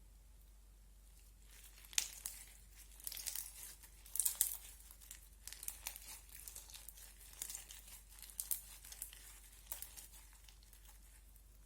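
Crispy crunchy slime crackling and popping as it is pressed and worked, in an irregular run of sharp crinkly snaps that starts about a second and a half in and dies away just before the end.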